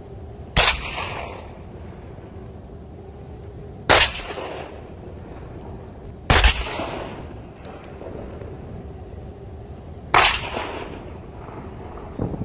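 Towed artillery howitzers firing a ceremonial 21-gun salute: four single cannon shots a few seconds apart, each followed by a rolling echo that fades away.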